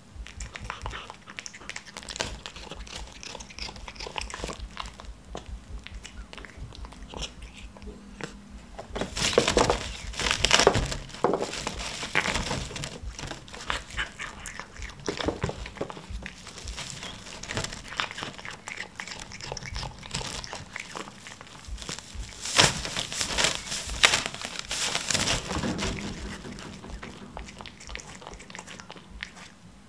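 Clear plastic wrap crinkling and crackling in irregular bursts as a cat claws and bites through it at pieces of tuna. The crackling is loudest in two spells, about a third of the way in and again past two-thirds.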